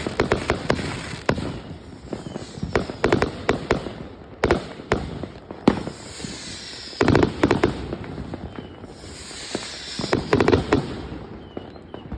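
A 180-shot firework cake firing rapid reports in uneven volleys. There are denser clusters of bangs about seven and ten seconds in, each followed by a high hissing crackle.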